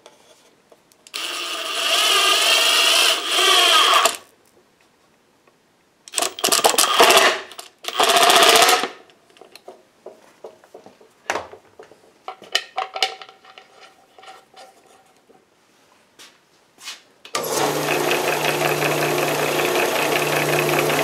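Kobalt cordless drill running in three bursts, wavering in pitch as it drives a bolt into the hub on the drill press's disc. After some light clicks, the camelback drill press starts about 17 seconds in and runs with a steady hum.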